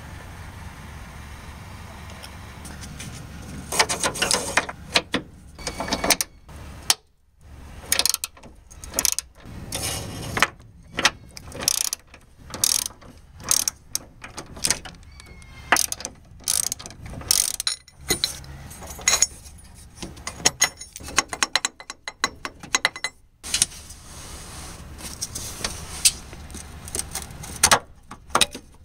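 Hand ratchet driving a 14 mm deep socket on an extension, clicking in quick runs as it is swung back and forth on the engine mount bolts, with short pauses between strokes.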